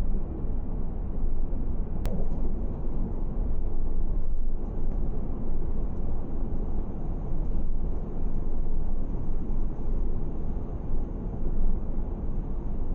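Steady low rumble of a car driving, road and wind noise, swelling and easing a little, with a single sharp click about two seconds in.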